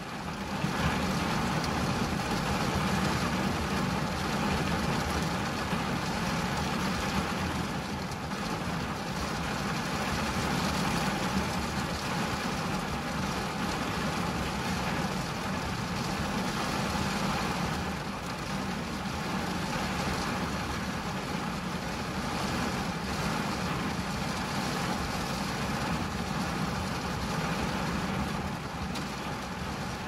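Steady rain falling on a car's windshield and roof, heard from inside the car, with a low steady rumble underneath.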